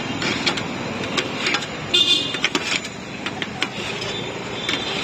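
Steel spoons clinking and scraping against a steel bowl as a piece of cooked mutton intestine is cut apart. Behind this runs steady street traffic, and a horn toots briefly about two seconds in.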